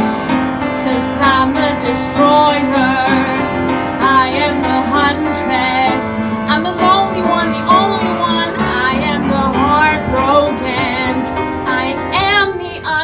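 A woman singing a show tune over live piano accompaniment, her held notes wavering with vibrato.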